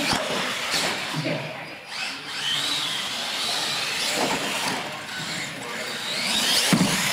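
R/C monster truck's electric motor whining as the truck drives, its pitch rising and falling as it speeds up and slows down.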